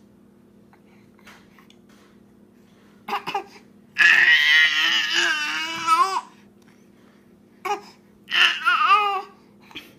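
Baby fussing and crying over a pacifier taken by its twin: quiet at first, then a couple of brief whimpers, a loud wail of about two seconds some four seconds in, and shorter cries near the end.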